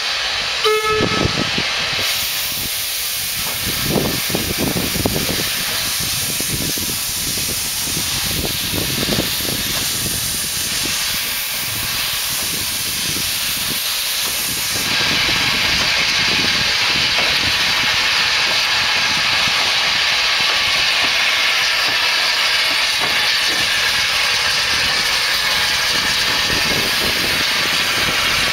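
Narrow-gauge steam tank locomotive hissing steam at close range, with faint irregular chuffs and clanks under the hiss while the engine moves slowly. About halfway through the hiss gets louder and steadier.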